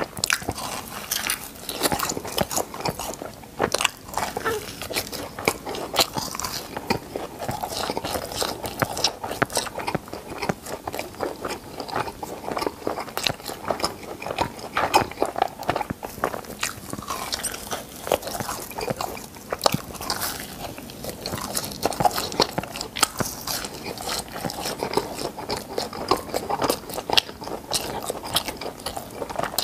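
Close-miked biting and chewing of crispy fried cheese balls: a dense, irregular run of sharp crackly crunches.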